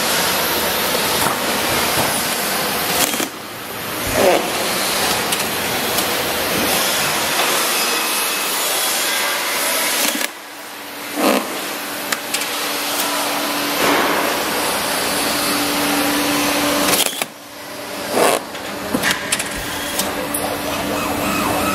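Door packaging machine running: a loud, steady whirring hiss that drops out briefly three times, about seven seconds apart, each time followed by a short knock, with a steady hum in the second half.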